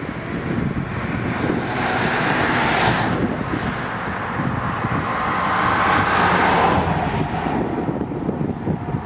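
Wind buffeting the microphone as a steady low rumble, with two swells of rushing noise that each build up and then drop off sharply, about two seconds in and again about five to seven seconds in.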